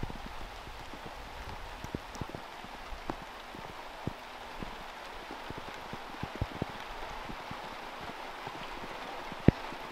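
Steady hiss of light rain, with scattered faint taps and one sharper click near the end.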